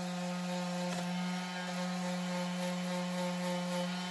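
Electric palm sander running steadily, its motor giving an even hum over the hiss of the pad sanding the aluminum surface of a brake caliper.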